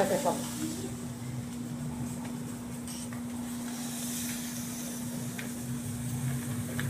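Meat sizzling faintly on a flat street-food griddle over a steady low hum, with a few light taps of a metal spatula.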